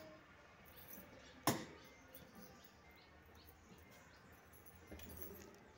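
Faint outdoor ambience with scattered small bird chirps, and a single sharp click about a second and a half in.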